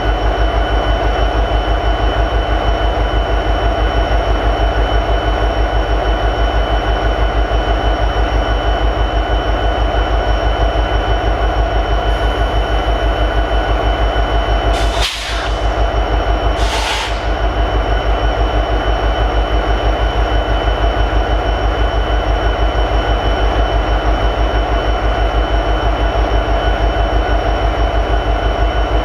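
EMD SD70ACe locomotive's 16-cylinder 710 two-stroke diesel prime mover idling steadily with an even low pulsing beat and a steady high whine, its bass boosted in the recording. About halfway through come two short bursts of hiss.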